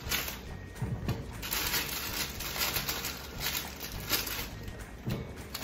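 Plastic bag of small red potatoes rustling and crinkling as it is handled, with a pot of water at a rolling boil bubbling under it.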